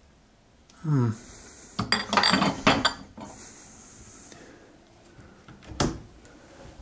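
Glass jars clinking and clattering as they are put back on a cupboard shelf, then a single knock about six seconds in as the cupboard door is pushed shut. A short murmur from a man's voice comes just before the clinking.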